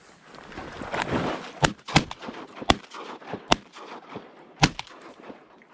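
Shotgun blasts, five in about three seconds, the first two close together.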